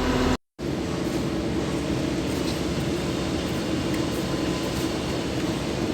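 Concrete mixer truck running steadily, a continuous low mechanical hum, with a brief dropout in the sound about half a second in.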